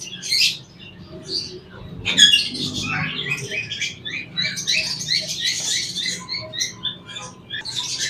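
A flock of caged budgerigars chattering, many quick high chirps and squawks overlapping. The chatter is sparse at first and thickens about two seconds in.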